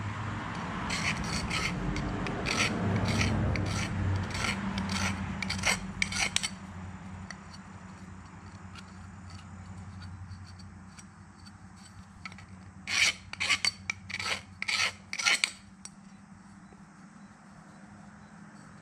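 Hand rasp scraping the cut end of a 3/4-inch copper pipe in short, quick strokes to take the burr off freshly chop-sawed pipe. A longer run of strokes comes in the first six seconds, then a short, fast run of about eight strokes a little past the middle.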